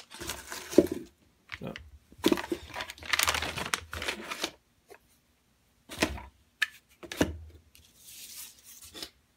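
Plastic packaging crinkling and rustling against shredded paper filler as packets are set into a cardboard box, in several bursts. Two short knocks come past the middle.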